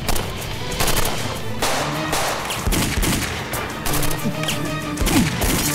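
Gunfire in a firefight: many rapid shots in irregular volleys, with background music carrying held tones underneath.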